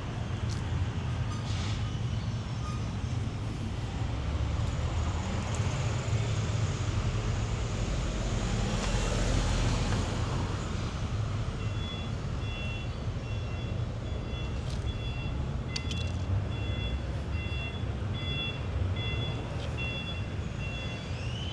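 City street traffic: a steady low rumble of passing vehicles, swelling as one goes by about halfway through. From a little past halfway, an electronic beeper sounds at an even pace.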